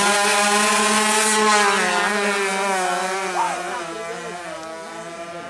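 Tuned 155cc two-stroke drag-bike engine held at high revs with a steady, high-pitched note, which fades down over the second half.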